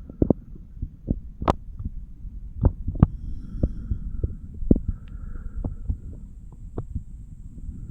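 A 34-year-old man's heartbeat heard through a stethoscope on the chest: repeated short, dull thuds over a low hum, with a few sharper clicks, the loudest about one and a half seconds in.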